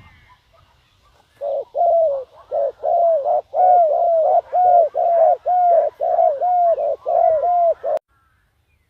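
Spotted dove cooing a rapid run of repeated coos, about two a second, starting about a second and a half in and cutting off suddenly near the end. It is a decoy dove giving its call to lure wild doves.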